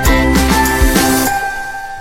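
Background music with a steady beat and bright jingling, thinning out to held notes about a second in.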